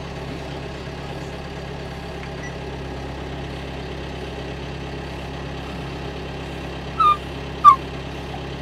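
John Deere tractor engine idling steadily, heard from inside the cab. Near the end the poodle in the cab gives two short, high whines, the second the loudest.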